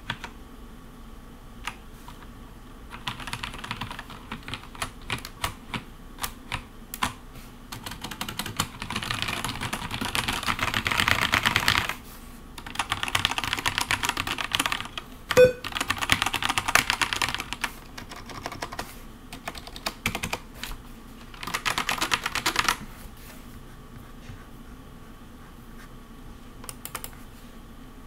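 Typing on a Cherry G80-11900 keyboard with vintage Cherry MX Black linear switches and GMK keycaps. A few lone key presses lead into long runs of fast keystrokes, with one sharper, louder clack about halfway through. The typing stops a little after twenty-two seconds, leaving only a few stray presses.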